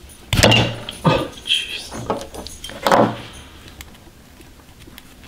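Knocks and clicks of a small metal carburetor and hand tools handled on a workbench while the float hinge pin is pulled out with needle-nose pliers. Three sharper knocks stand out, the loudest about half a second in, with light tinkling and scraping between.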